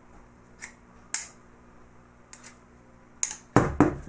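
Steel needle-nose pliers and a block magnet clicking together and knocking on a tabletop as the pliers are picked up by the magnet and pulled off: a few sharp clicks, then a quick run of louder knocks near the end.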